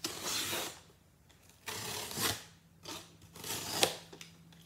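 Box cutter slicing through the packing tape on a cardboard shipping box, in about four short scraping strokes, with one sharp click near the end.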